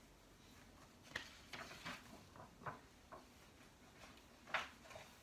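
Pages of a large paper picture book being handled and turned: a few soft rustles and flaps, the loudest about four and a half seconds in.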